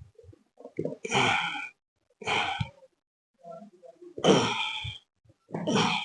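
A person sighing out loud four times, each a breathy, half-second exhalation with some voice in it.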